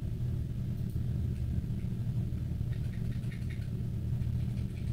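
Steady low hum of background noise, with a few faint clicks about three seconds in.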